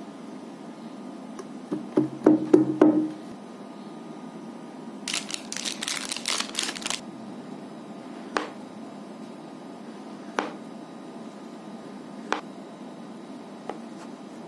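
Kitchen knife chopping a block of white chocolate on a plastic cutting board: single sharp chops about every two seconds in the second half. Earlier there is a burst of loud knocks with a brief ring, the loudest sound, and a rustling noise lasting about two seconds.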